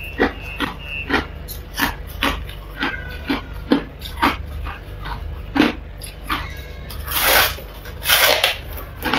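Mouthful of freezer frost being chewed, with about two crisp crunches a second. Near the end come two longer, louder crunches as she bites into a fresh chunk of frost.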